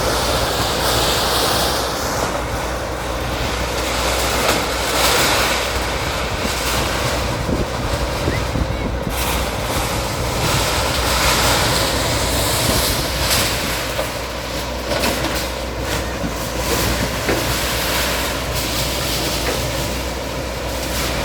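Bulldozer's diesel engine running steadily under a dense rumbling noise, with scattered knocks and clatter.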